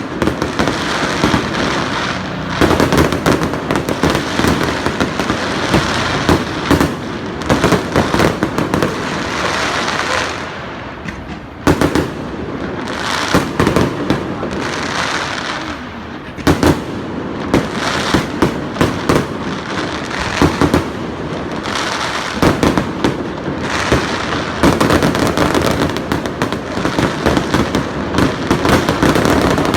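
Fireworks display: a dense barrage of shell bursts and bangs over continuous crackling, easing briefly about ten seconds in before building again.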